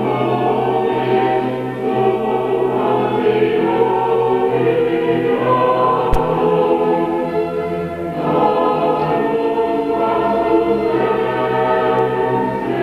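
A choir singing a hymn in sustained chords, with a steady low note underneath. A single sharp click about six seconds in.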